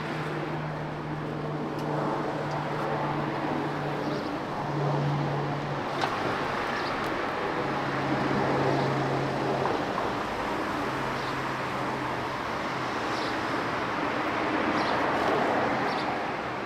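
City street traffic: vehicle engines running and passing over a continuous road noise, with a low engine hum that changes pitch every few seconds.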